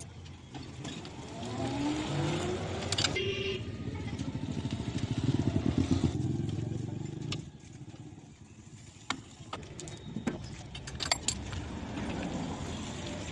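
A motor vehicle engine running close by, growing louder to a peak about six seconds in and dropping away a little after seven seconds. It is followed by a few sharp clicks near the end.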